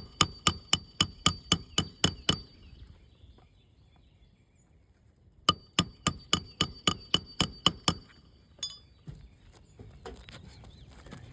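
Hammer driving roofing nails into asphalt shingles: two runs of quick, ringing strikes, about four a second, with a pause of about three seconds between them, then one lighter knock.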